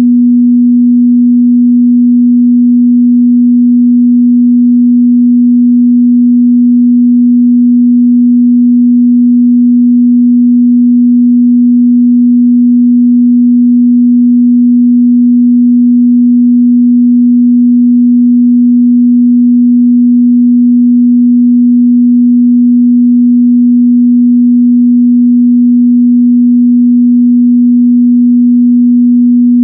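A steady 243 Hz sine-wave test tone, one pure low hum held at a constant pitch and level, used to test a speaker's or headphone's mid-bass response.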